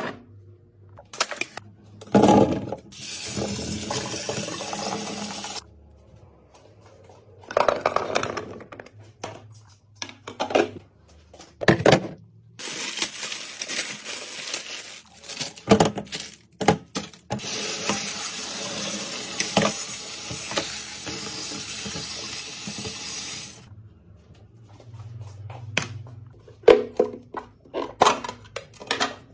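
Water running or pouring into a container in long, steady stretches lasting several seconds, broken by sharp clicks and knocks of containers and lids being handled.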